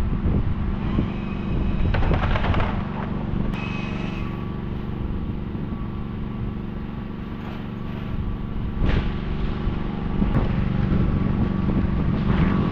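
An engine running steadily at one speed, with a few knocks or impacts over it.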